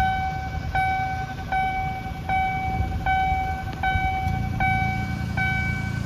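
Railway level-crossing warning bell ringing in a steady rhythm, a little over one clear ding a second, signalling that the barriers are down for an approaching train. Under it runs the low rumble of idling road vehicles.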